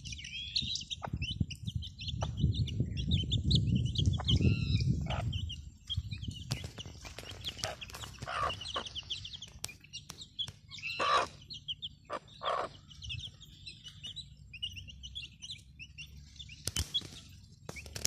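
Young desi chicks peeping constantly in quick, high chirps, while a mother hen gives a few lower clucks about eight to thirteen seconds in. A low rumble sits under the first five seconds.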